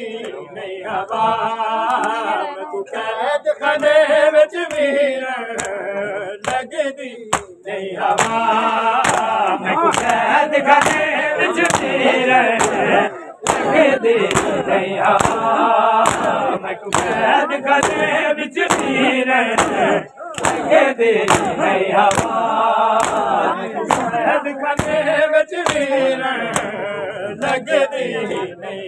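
Men chanting a noha lament together, with the rhythmic slaps of chest-beating (matam) keeping time at about two beats a second. The singing breaks off briefly twice between lines.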